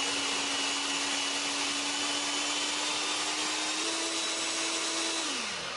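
Ravelle electric food chopper running, its motor humming steadily as it blends a spice paste of chillies, shallots, garlic and candlenuts with oil. The pitch steps up slightly about four seconds in, then slides down near the end as the motor winds down.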